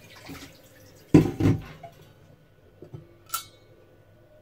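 Stainless-steel cookware being handled on a stovetop: two dull knocks about a second in, then a short metallic clink with a brief ring as the pot lid is taken up.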